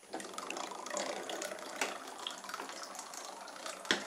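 Small plastic paddle wheel turning in bath water, a steady splashing churn with scattered sharp clicks, the sharpest near the end.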